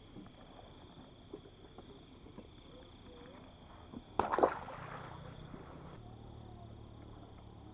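A steady high-pitched drone of night insects, with a few faint clicks. A short, loud scuffling noise comes about four seconds in, and a low steady hum follows it.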